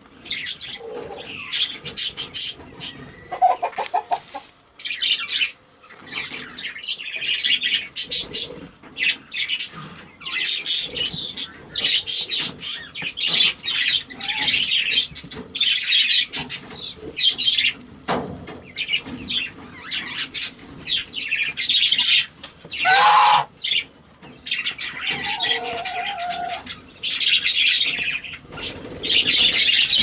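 Quaker parrot (monk parakeet) chattering in rapid, scratchy chirps and squeaks, broken by a few short lower calls, one of them dropping in pitch.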